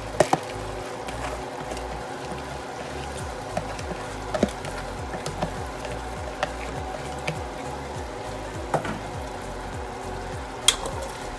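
Rice and red lentils poured from a plastic bowl into a pot of spiced oil and frying, with a few sharp clicks of the bowl knocking the pot. Background music plays throughout.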